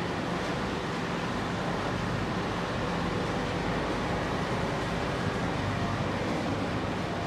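Steady industrial machinery noise from a refrigerator recycling and shredding line: a constant, even rumble with a faint hum and no distinct impacts.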